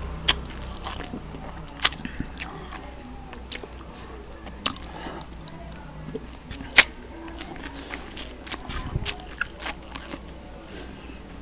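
Close-miked eating sounds: a man chewing a mouthful of stir-fried rice noodles, with irregular sharp mouth clicks and smacks, the loudest about two-thirds of the way in. A steady low hum runs underneath.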